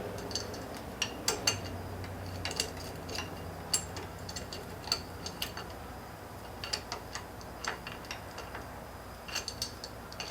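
Adjustable wrenches being fitted onto the camshafts: irregular light metallic clicks and clinks with a short ring, over a low steady hum.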